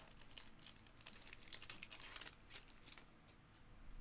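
Foil wrapper of a 2023 Bowman Mega baseball card pack crinkling and tearing as it is opened by hand: faint, short rustles that die down toward the end.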